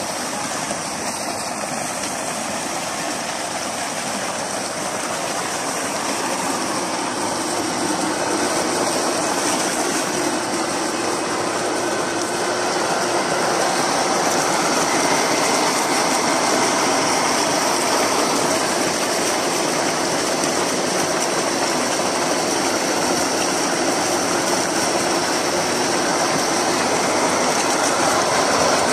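Maxipro MHF6A 3-inch, 3 HP electric centrifugal water pump running steadily, with water rushing out of its discharge pipe. The sound grows gradually louder.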